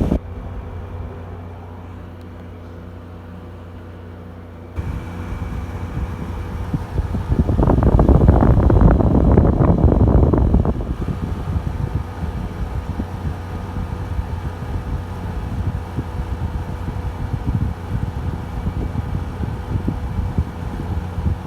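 Frigidaire 5000 BTU window air conditioner running on low cool: a steady fan and compressor hum that steps up in level about five seconds in. A loud rushing noise rises over it for about three seconds in the middle, then the steady running goes on.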